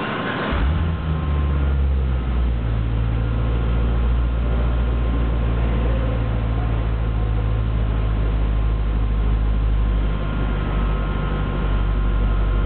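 2009 Cadillac CTS-V's supercharged 6.2-litre V8 starting up, heard at the exhaust: a brief crank, the engine catching about half a second in, revs sitting slightly higher for a second or two, then settling into a steady, deep idle.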